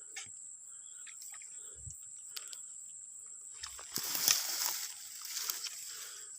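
Water splashing at the surface for about a second, around four seconds in, from a hooked snakehead thrashing on the line, over a steady high-pitched insect drone.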